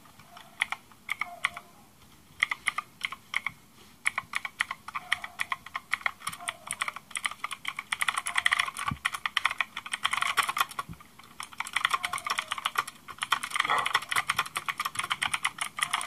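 Rakk Kimat XT.LE mechanical keyboard with PBT keycaps being typed on as a sound test: a few slow, separate keystrokes at first, then fast continuous typing from about four seconds in.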